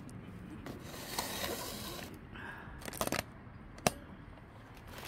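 Handling noise as the camera is moved and repositioned: a rustling scrape about a second in, then a few sharp clicks around three to four seconds in.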